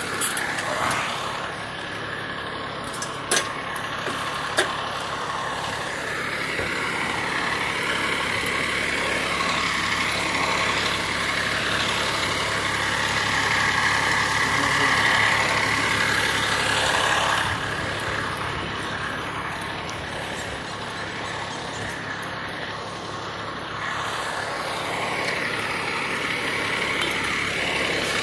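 Vehicle engine running steadily, with two sharp clicks a few seconds in.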